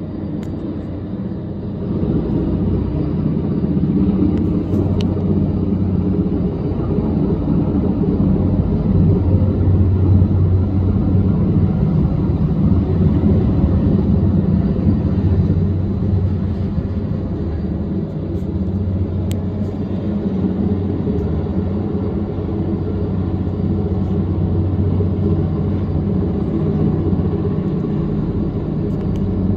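Heavy-lift helicopter hovering with a load on a long line: a steady, loud low rumble of rotor and engine, getting louder about two seconds in.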